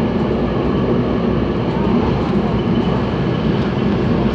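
Steady running noise of a CPTM electric commuter train heard from inside the carriage: wheels on the rails and the car's rumble while moving at speed.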